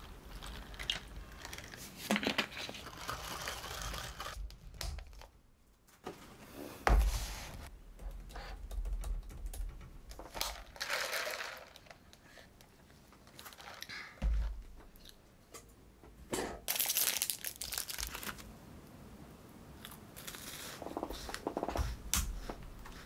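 Plastic packaging crinkling and tearing, with water poured from a plastic bottle into a plastic drink cup and a few sharp knocks of the cup and other things set down on a desk.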